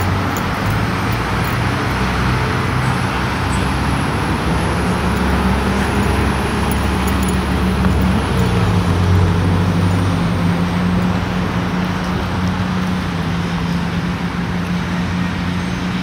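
Steady road traffic noise with a low engine hum underneath that shifts in pitch about eight seconds in.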